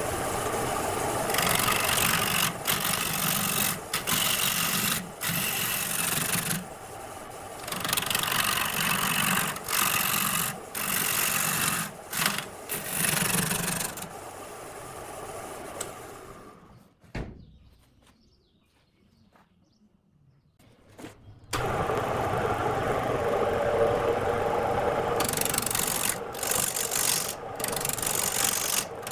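Wood lathe running with a turning tool cutting the spinning wood in repeated passes, the scraping broken by short pauses. About halfway through the noise dies away to near silence for about four seconds, then starts again abruptly and the cutting resumes.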